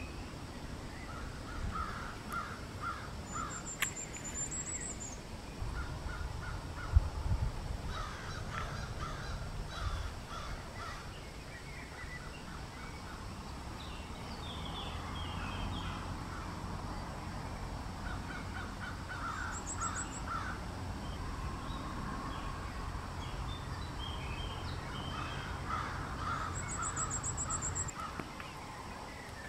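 Birds calling: short runs of harsh, rapidly repeated calls every few seconds, with a few brief high chirps from a smaller bird. A sharp knock about seven seconds in is the loudest single sound.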